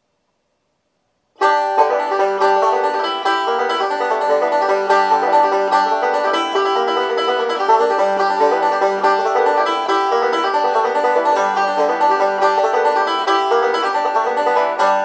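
Goldstar GF-100FE five-string banjo, fitted with its stock generic bridge, played bluegrass-style: a steady stream of picked notes. It starts about a second and a half in after a moment of silence.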